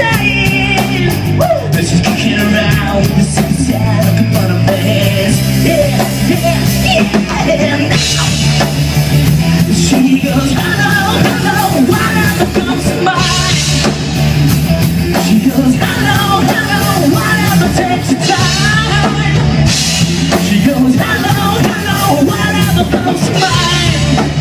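Rock band playing a song loudly, with a drum kit driving it.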